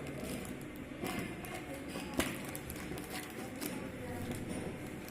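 Irregular light taps and clicks of an immersion rod water heater and its packaging being handled, with one sharper knock about two seconds in.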